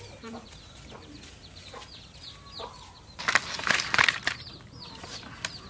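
Live freshwater fish thrashing and slapping on a banana leaf in a loud flurry of rapid strokes about three seconds in, lasting about a second. Behind it, chickens cluck and many short high chirps repeat.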